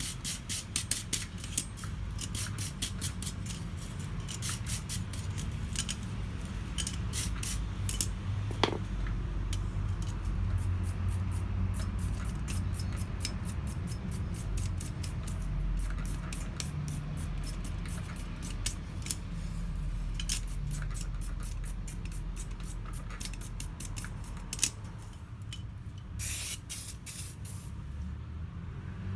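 Brass wire brush scrubbing over forged steel in quick, irregular strokes, laying a brass finish on the black steel, over a steady low hum.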